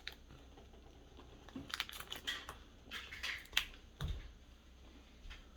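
Chewing a Twix bar: a run of crisp crunches from the biscuit between about one and a half and four seconds in, then a low thump.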